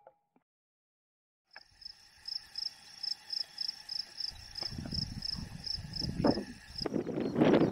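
Insect chirping in a steady pulsed rhythm, about three to four high chirps a second, starting about a second and a half in. Wind buffets the microphone more and more from the middle onward and is loudest near the end.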